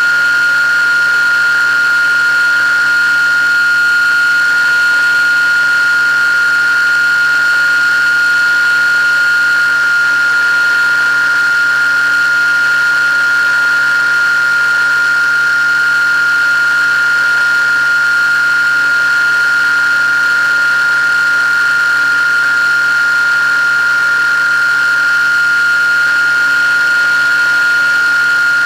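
Motor and propeller of an FPV radio-controlled plane running at steady cruise throttle, heard from the onboard camera: a steady high-pitched whine that holds one pitch, over a hiss of rushing air.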